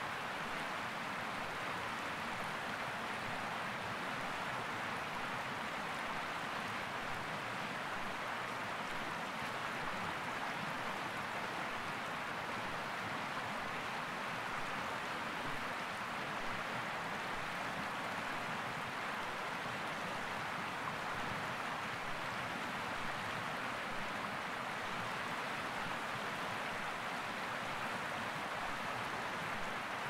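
Shallow, rocky mountain river running steadily over and around rocks: an even rush of water with no breaks or distinct splashes.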